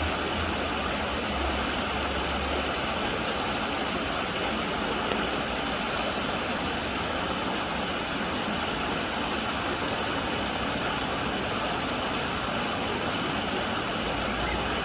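Steady rushing of water flowing in a stream, with a low rumble in the first few seconds and again near the end.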